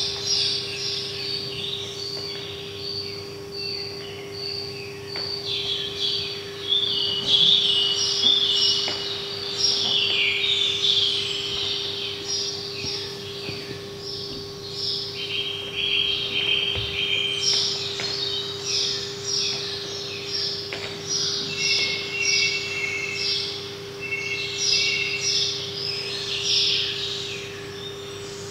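Dense birdsong: many small birds chirping and twittering without pause, over a steady hum.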